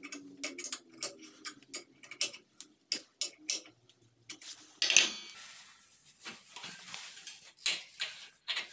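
Steel pliers clicking and scraping against a steel nut and wire rope clamped in a vise: irregular metallic clicks, with one louder clank about five seconds in.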